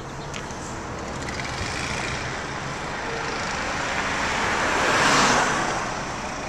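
Car road and engine noise heard from inside the cabin, with a steady low engine hum under the tyre and wind noise. The noise swells to its loudest about five seconds in, then eases back.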